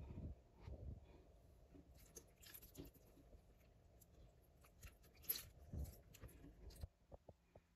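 Near silence with faint scattered clicks and soft wet handling sounds as sauce is spooned over raw whole chickens in a roasting pan.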